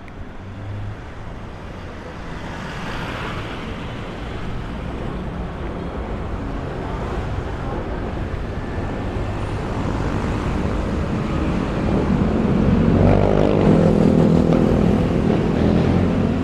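Street traffic: a motor vehicle's engine grows steadily louder and is loudest about three-quarters of the way through, when it passes close by.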